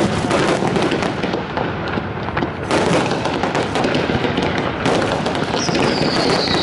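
Fireworks display: aerial shells bursting in a dense, continuous string of booms and crackles, with a falling whistle starting near the end.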